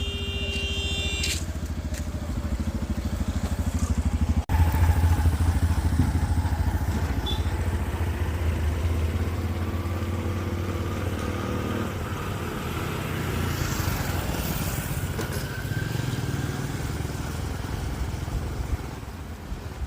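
A motor vehicle engine running steadily with a low, even rumble, cutting briefly about four and a half seconds in and coming back louder.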